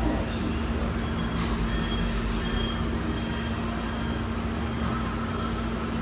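Steady rumble of street traffic with a constant low hum, and a couple of faint light clicks in the first second and a half.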